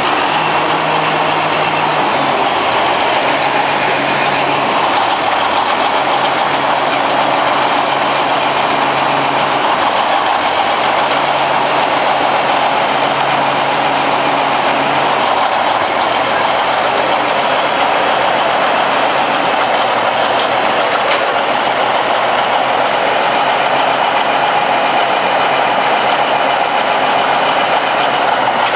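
Old Caterpillar crawler dozer's diesel engine running steadily under low throttle as the machine crawls slowly along a low-loader trailer.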